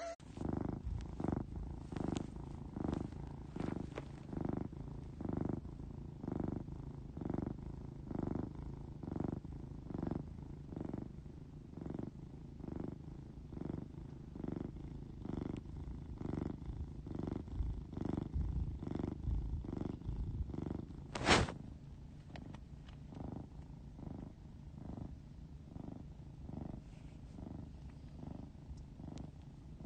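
Domestic cat purring and snoring as it breathes, pulsing about one and a half times a second and a little weaker over the last third. A single brief sharp click about two-thirds of the way through.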